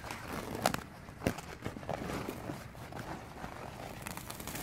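Andek Cocoon 111 peelable spray coating being peeled and handled off a car's hood: irregular rustling and crackling, with two sharp clicks in the first second and a half.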